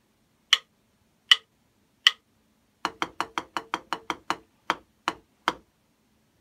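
Drumsticks played in a rhythm-dictation exercise: three evenly spaced count-in clicks, then a run of eight quick even strokes followed by four strokes at half the speed. These are sixteenth notes then eighth notes, the pattern 'onigiri, onigiri, ta ta ta ta'.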